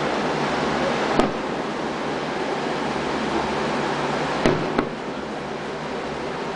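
Aerial firework shells bursting at a distance: three sharp bangs, one about a second in and two close together about four and a half seconds in, over a steady background hiss.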